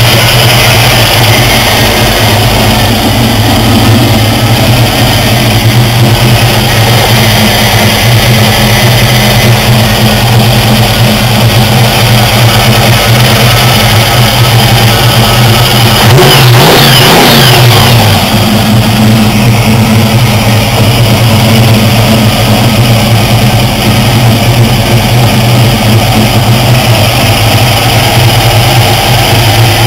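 Supercharged 350 small-block Chevy V8 with a 4-71 Roots blower running at idle, loud and steady. About halfway through it is revved once, the pitch rising and falling back within about two seconds.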